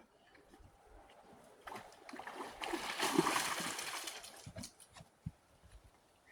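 A dog splashing and sloshing through pond water. The splashing builds about a second and a half in, is heaviest around the middle, and dies away with a few low thuds near the end.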